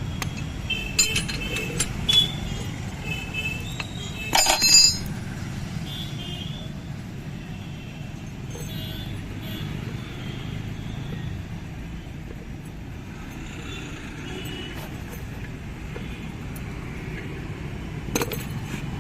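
Metal tools clinking and clanking on a steering rack as its worn bush is worked out: a few ringing clinks, a louder cluster of clanks about four and a half seconds in, and another clank near the end, over a steady low hum.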